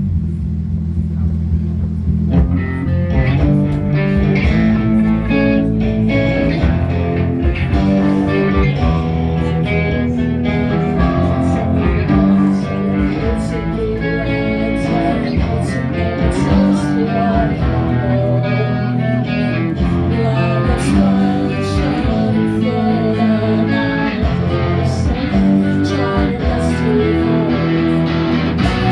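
A band playing a song live, led by guitars: a low held bass sound at first, with the full band joining about two seconds in.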